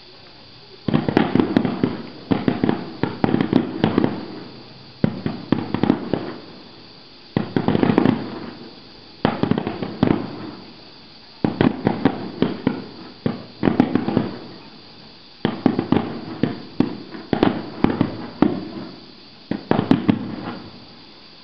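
Fireworks display finale: aerial shells bursting in volleys, each volley a quick run of several bangs that dies away, coming about every two seconds from about a second in.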